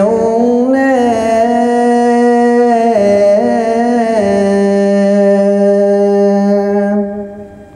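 A Buddhist monk's solo male voice singing one long drawn-out note of a Sinhala kavi bana verse. The pitch bends a little about a second in and again around three to four seconds, then the note fades out near the end.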